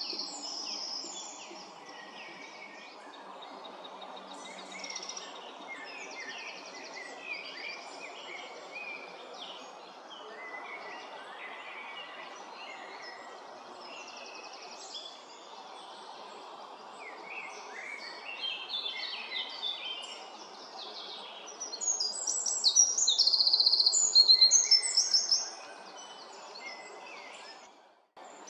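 Morning chorus of several songbirds, overlapping chirps and trills over a steady low background hum. The birdsong grows louder for a few seconds near the end, then the sound drops out for a moment.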